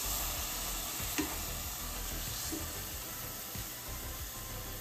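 Thin lemon slices sizzling in hot oil in a stainless steel sauté pan, as they start to brown. A couple of light taps of the tongs against the pan, about a second in and again a little later.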